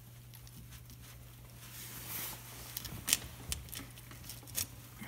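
A few faint, scattered metal clicks and taps as a 1-1/8-inch socket is fitted by hand onto a rear wheel's axle nut, over a low steady hum.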